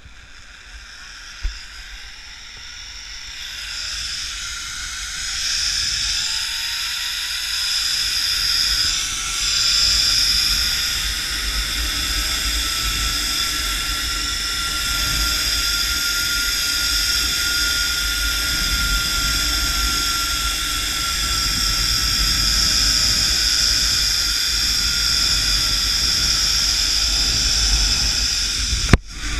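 Zip line trolley pulleys whirring along the steel cable: a steady whine and hiss that grows louder, with a single tone rising in pitch as the rider gathers speed. Wind rumbles on the helmet camera's microphone. A sharp knock near the end comes as the trolley reaches the landing platform, and the sound drops off.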